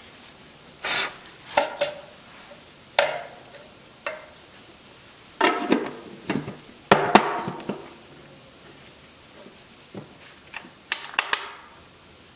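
Hard plastic lid of a PVC electrical junction box being handled and fitted onto the box: several separate knocks and scrapes of plastic on plastic, scattered and irregular.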